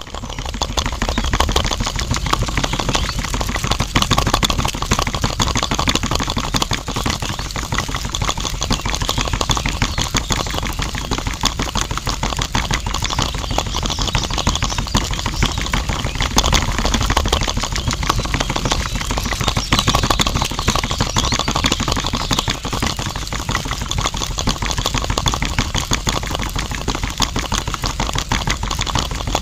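Small DC motor of a miniature homemade cement mixer running steadily, turning the drum full of wet slurry, with a fast buzzing rattle.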